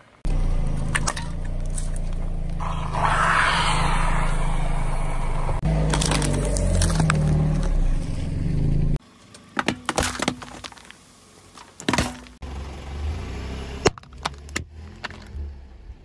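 A car tyre rolling over and crushing small objects, with the car's engine running low and steady and sharp cracks and crunches as candy, a sweet tube and a plastic cup break under the wheel. About nine seconds in the engine rumble drops away, leaving scattered cracks and snaps of the crushed pieces.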